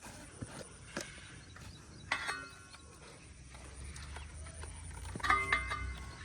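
Two short animal calls, about three seconds apart, the second louder, preceded by a few faint clicks.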